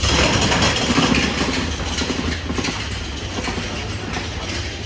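Roller coaster train running along its track in the dark: a steady low rumble with rushing, clattering noise, loudest in the first second or so and easing slightly after about two seconds.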